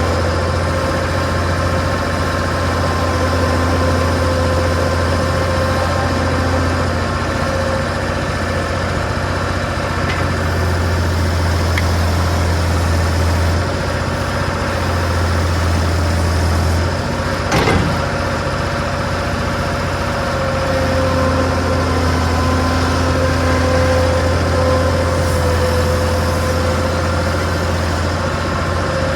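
Skid steer's diesel engine running steadily, its pitch rising and falling a little as it works. A single sharp clank a little past halfway through.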